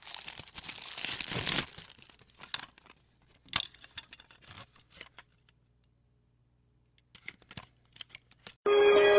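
Product packaging being torn open and crinkled: a dense crackle for the first second and a half, then scattered crinkles and clicks with a short quiet gap. Music with bell-like notes comes in near the end.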